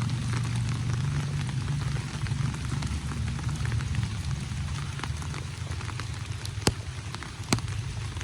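Rain falling steadily, with many small drop strikes over a steady low rumble, and two sharp clicks near the end.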